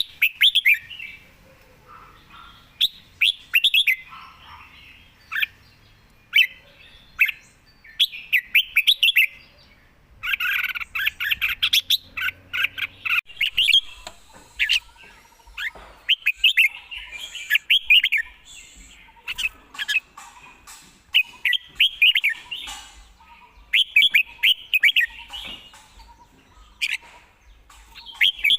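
Red-whiskered bulbul singing: short, quick chirpy phrases repeated again and again with brief pauses between them.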